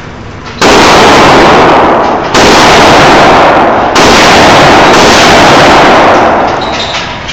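Smith & Wesson M&P15 AR-15 rifle fired three times, a little under two seconds apart, each shot loud enough to overload the phone's microphone. Each report rings on in the echo of an indoor range until the next, and the last dies away near the end.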